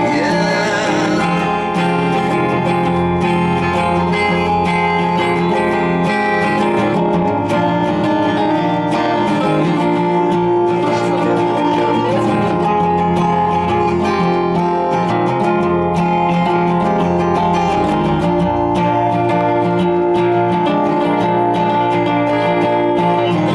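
Live rock band playing an instrumental passage led by strummed guitars, with a brief sung "yeah" at the start.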